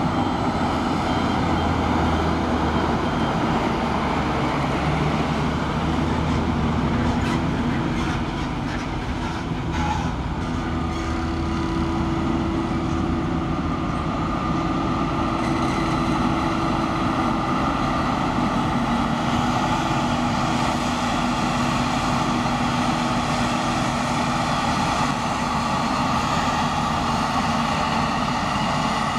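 Claas Jaguar 870 self-propelled forage harvester running while chopping maize, a steady heavy machine drone with steady whining tones. A Fendt tractor pulling a silage trailer drives past in the first half, with a few clatters around the middle.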